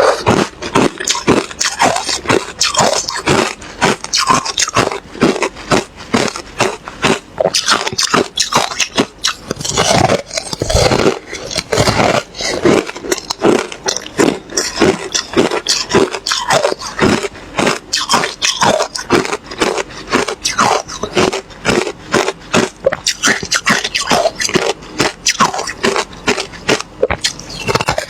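Ice being bitten and crunched between the teeth, close to the microphone, in a fast, unbroken run of crisp crunches.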